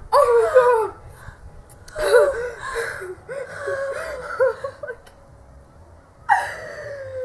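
Young women squealing, whimpering and laughing in shock at the ice-cold water just tipped over them, with a long cry sliding down in pitch near the end.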